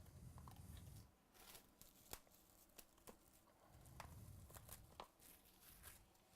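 Faint handling of trading-card packaging: scattered soft clicks and a little tearing and crinkling, with two brief low rumbles from things knocking the table.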